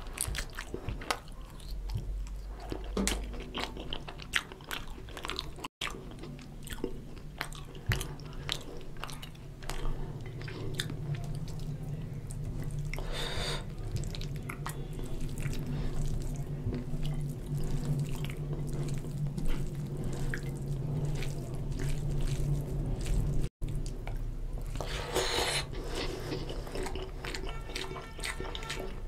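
A person eating spicy goat curry with rice by hand: chewing with many small wet mouth clicks and smacks, and the squish of fingers mixing rice into the oily curry. The sound drops out abruptly a few times.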